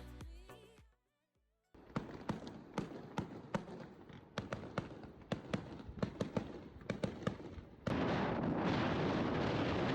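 Background music fades out, and after a brief gap comes a quick series of sharp cracks, about three a second, over a faint hiss. About eight seconds in, this gives way abruptly to steady wind buffeting the microphone.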